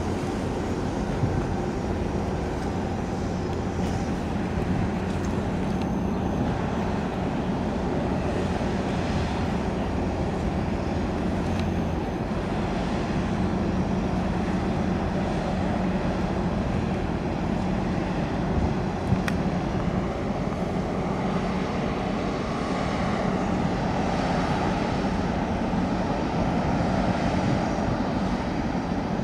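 Steady low engine drone with a constant hum from a large container ship's machinery as the ship passes close by.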